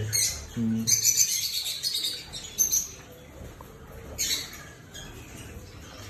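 A flock of caged lovebirds chattering with shrill chirps and squawks, busiest in the first three seconds, with another outburst about four seconds in.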